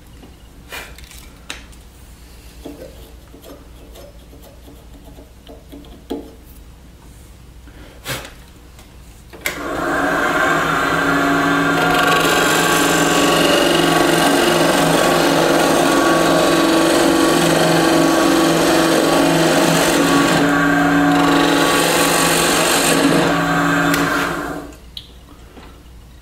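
A turning tool cutting a spinning bocote pendant blank on a wood lathe. A few light taps over a low hum come first; about nine seconds in, a loud, steady scraping hiss of the cut starts and runs until it stops near the end.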